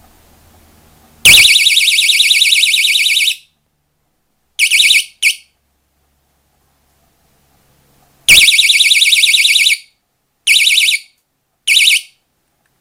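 JD-188 wireless security alarm sounding a high-pitched, rapidly warbling siren in stop-start bursts. A blast of about two seconds comes a second in, then two brief chirps, then a shorter blast and two short bursts near the end.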